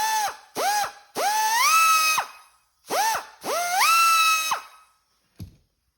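Mastercraft 25,000 RPM die grinder run free in about five short trigger bursts, its high whine jumping up and dropping away each time, the two longer bursts climbing in steps. It is extremely loud and hard to hold at a steady speed.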